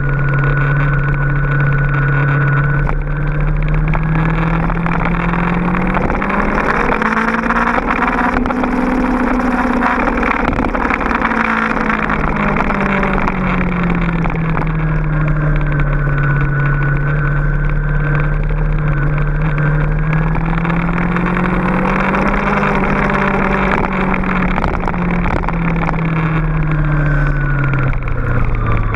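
Honda VFR800's V4 engine under way, heard from a camera on the bike's tail rack. The engine note slowly rises to a peak about eight seconds in and falls, climbs again around twenty-two seconds and drops near the end. Wind rush grows loudest with the higher speed in the first half.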